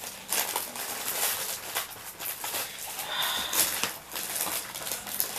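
Rustling and crinkling of packaging and small items being handled, with irregular light crackles and soft knocks.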